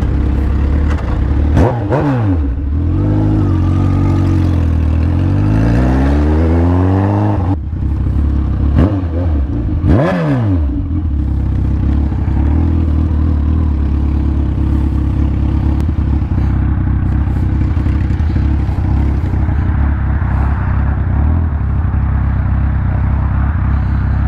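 Inline-four sportbike engine pulling away and accelerating, its pitch climbing over several seconds with a break near the middle of the climb and another quick dip and rise a little later. It then settles into a steady drone at road speed, with wind noise over the helmet microphone.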